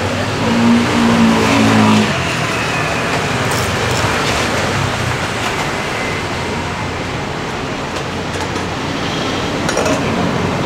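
A motor vehicle's engine running close by and loudest during the first two seconds, then a steady wash of street traffic noise with a few light clinks.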